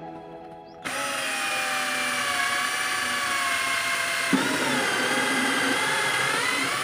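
Cordless drill with a hole-saw bit starts about a second in and cuts into a PVC pipe. Its motor whine dips and recovers in pitch as the saw bites, with a click about four seconds in.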